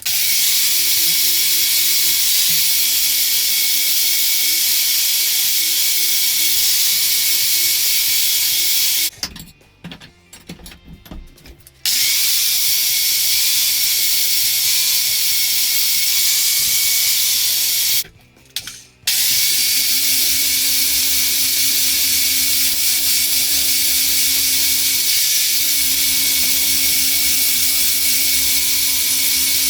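Power grinding tool running against the freshly forged steel blade to clean off the forge scale, in three long runs with two short stops: once about nine seconds in for a few seconds, and once briefly about eighteen seconds in.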